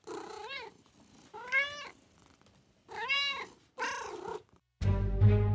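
A cat meowing four times in short calls that rise and fall in pitch. Music with bell-like chimes starts near the end.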